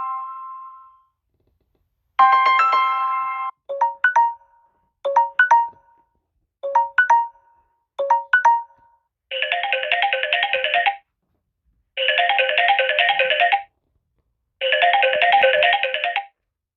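Samsung Galaxy S8 ringtones playing: a chiming chord dies away, then short two-note electronic blips repeat about every second and a half, then a fast trilling ring sounds in bursts of about a second and a half with short pauses between.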